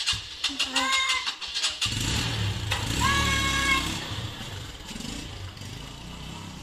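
Commuter motorcycle engine starting about two seconds in, then running as the bike pulls away, fading as it rides off.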